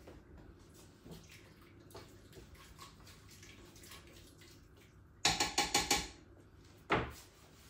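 Metal pot and lid of a Crockpot Express electric pressure cooker being handled, with faint clinks. About five seconds in comes a quick run of loud rattling clatters, then a single sharp clunk.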